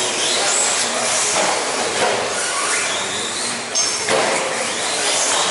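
Electric 1/10-scale RC stadium trucks racing in a large hall: motors whining up and down in pitch with the throttle over a steady rushing noise of tyres and running gear.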